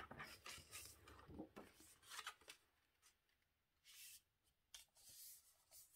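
Faint scraping and rustling of white cardstock being scored for a fold at 10.5 cm, a few short strokes in the first couple of seconds, then only small rustles.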